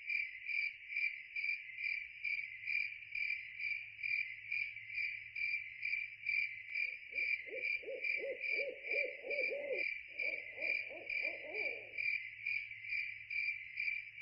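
Crickets chirping in a steady, even pulse, about two chirps a second. Midway, an owl hoots in two quick runs of short, rapid notes, with a brief break between them.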